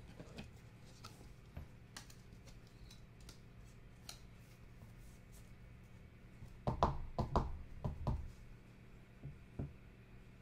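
A sleeved trading card being slid into a rigid plastic top loader: faint plastic clicks, with a cluster of louder scrapes and clicks about seven to eight seconds in and two more near the end.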